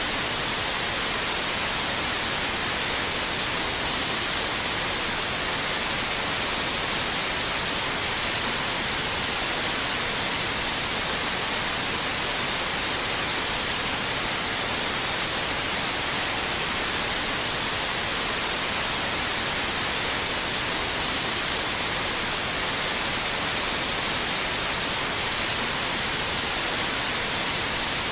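Steady white noise: an even, unchanging hiss, brightest in the treble, at a constant level.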